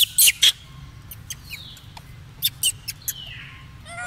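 Sharp, high-pitched animal squeaks and chirps: a quick cluster near the start and a few more through the middle, some falling in pitch, with a brief wavering call near the end.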